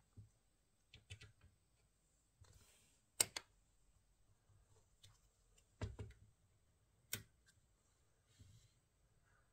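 Scattered sharp clicks and taps of hard plastic and metal parts being handled during work on a laptop. The loudest click comes about three seconds in, with two more near six and seven seconds.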